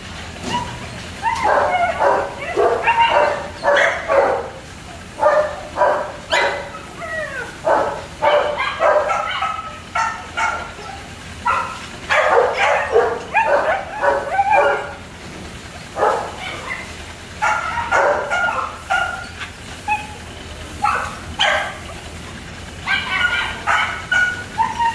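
Dogs barking and yipping in repeated bouts with short lulls between them.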